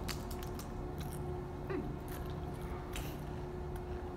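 Several people biting and chewing Pringles pizza-flavoured potato crisps: irregular crisp crunches and crackles, over a faint steady hum.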